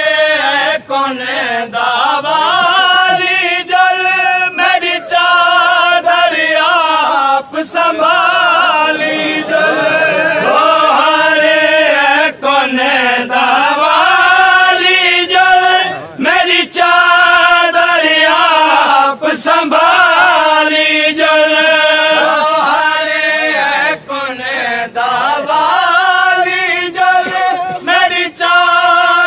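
Voices chanting a Saraiki noha, a Shia mourning lament, in long drawn-out lines with a wavering pitch.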